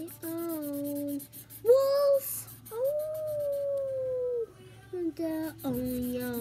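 A child howling like a wolf in a run of long, drawn-out wordless notes. The highest and longest comes near the middle, held for almost two seconds and slowly falling.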